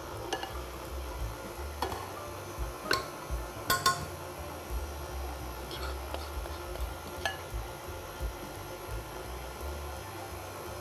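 Metal spoon clinking and scraping against a glass bowl while scooping flour, a few sharp clinks scattered through, the loudest cluster about four seconds in.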